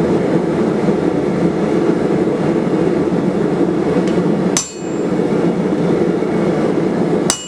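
Steady roar of a running blacksmith's forge, with two sharp metallic clinks that ring briefly, one about halfway through and one near the end.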